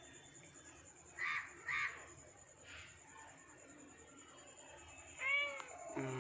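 A cat meowing: two short, harsh calls close together about a second in, then one longer meow that rises and falls near the end.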